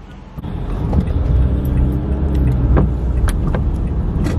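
Car cabin noise while driving: a steady low rumble of engine and tyres that starts suddenly about half a second in, with a few sharp clicks over it.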